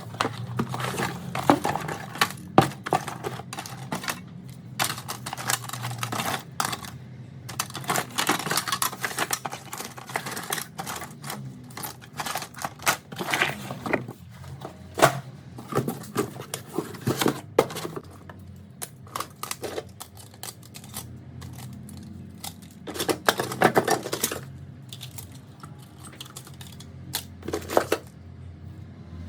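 Small hand tools and phone parts clicking, tapping and scraping against each other and a hard work surface while an iPhone 4 is taken apart. The clicks are irregular and sometimes come in quick clusters, over a low steady hum.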